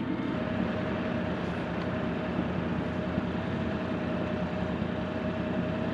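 A boat motor running steadily, with a thin steady whine over an even rumble.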